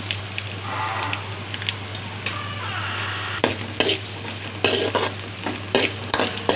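Chopped onion, carrot and green chilli sizzling in hot oil in a metal kadai while being stirred with a spatula. From about halfway through, the spatula scrapes against the pan several times, sharp and loud over the steady sizzle.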